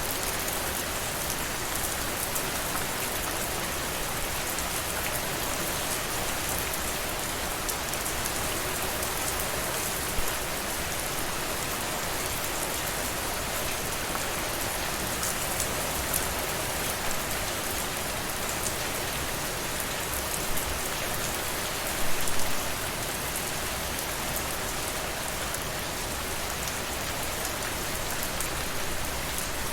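Steady rain falling, with a dense scatter of individual drops striking a surface; a few drops hit louder, with a short louder cluster about two-thirds of the way in.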